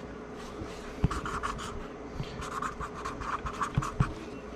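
Writing by hand on the case-bolt template: a run of short scratchy strokes, with a couple of light knocks about a second in and near the end.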